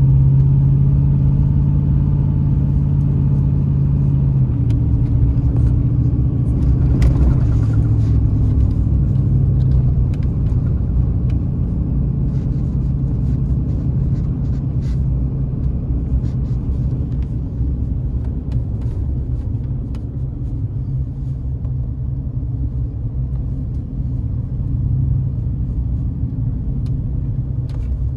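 2008 Dodge Dakota V8 pickup driving on a snow-covered road, heard from inside the cab: steady low engine and tyre rumble, the engine note easing about four seconds in. Scattered light clicks and knocks run through it.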